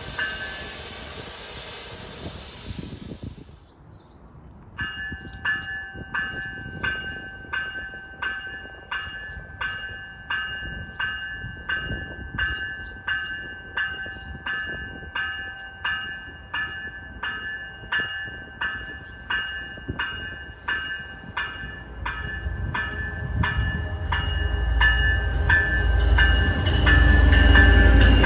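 GO Transit commuter train's bell ringing steadily, about two strikes a second, as the train approaches the platform; over the last several seconds the low rumble of the arriving train grows louder beneath it. A hiss fades out in the first few seconds.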